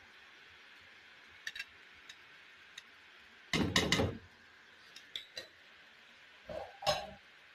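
Boondi batter drops frying in hot oil in a steel kadhai, with a steady sizzle. A metal slotted spoon knocks against the pan in a quick cluster about three and a half seconds in, and clinks twice more near the end.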